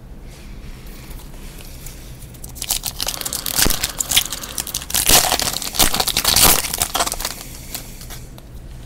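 Foil wrapper of a trading-card pack crinkling as it is torn open by hand: a dense run of crackles lasting about five seconds, starting roughly two and a half seconds in.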